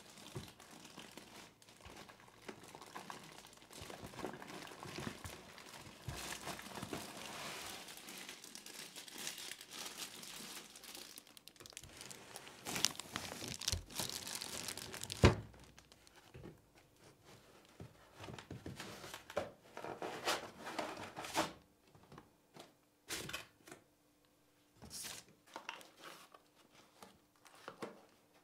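Plastic packaging bag crinkling and rustling as a wrapped projector is handled and lifted out of its box, with one sharp knock about halfway through. After that come shorter, separate rustles and knocks as a small cardboard accessory box is handled.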